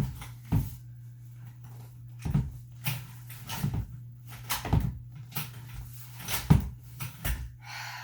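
Playpen frame tubes and plastic joints knocking and clicking as they are pushed and worked to latch a rail into place, about eight sharp knocks at uneven intervals over a steady low hum.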